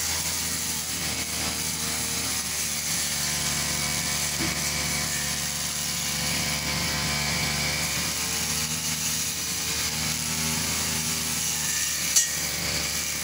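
Old backpack brush cutter's two-stroke engine running at working speed as its line head cuts grass. A single sharp click comes near the end.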